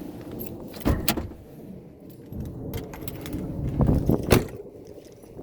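Metallic jangling and sharp knocks in two short clusters, about a second in and again around four seconds in, over a low steady background rumble.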